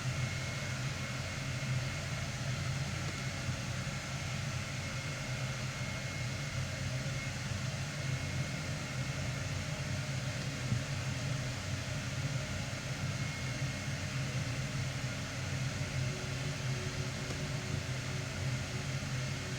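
A steady low hum with an even hiss, like a running fan or appliance, with no clear events in it.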